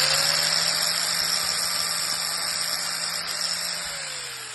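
Electric angle grinder spinning at full speed with a steady high whir, then switched off about four seconds in and winding down, its pitch falling.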